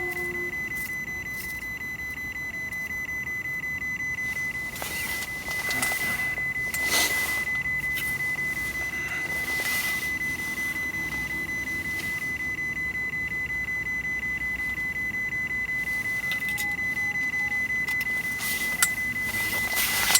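A steady high-pitched electronic whine that never changes pitch, over a low background hum, with a few brief rustles and knocks about five, seven and nine seconds in and again near the end.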